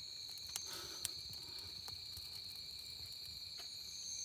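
Night insects trilling: a steady, unbroken high-pitched whine. A few faint sharp clicks are heard over it.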